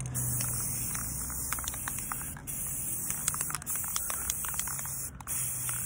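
Aerosol can of rust reformer spraying in a steady hiss, released briefly about two and a half, three and a half and five seconds in. A low steady hum runs underneath.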